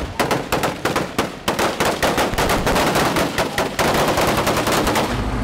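Heavy small-arms gunfire: automatic rifles firing in rapid bursts of many shots a second. Toward the end the shots blur into a near-continuous clatter.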